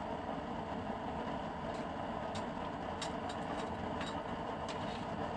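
Used-oil burner stove burning with a steady rushing flame noise fed through its air duct, its chamber made from a refrigerator compressor shell. A scatter of sharp ticks comes through in the second half.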